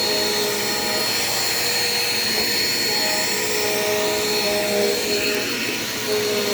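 Dirt Devil Quick Power upright vacuum running steadily with a high whine, its brush roll driven by a freshly fitted Style 5 belt.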